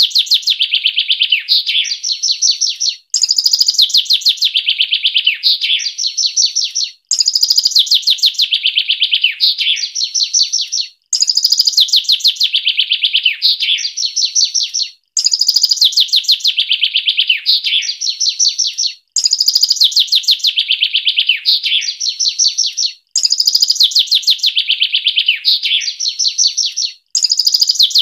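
A songbird's fast, tightly packed song: a dense run of notes starting high and sliding lower, then a shorter higher phrase. The same phrase of about three and a half seconds repeats after a brief break roughly every four seconds, a looped masteran recording of rapid 'speed rapat' song.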